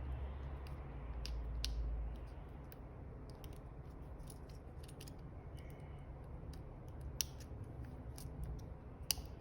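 Scattered small clicks and taps of phone parts being handled and pressed into place during reassembly, with a low rumble of handling noise in the first two seconds.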